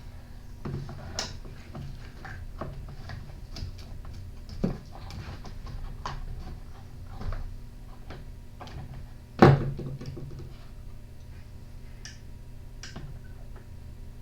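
Hand tools and small parts being handled on a workbench: scattered clicks, taps and knocks, with one louder knock about nine and a half seconds in, over a steady low hum.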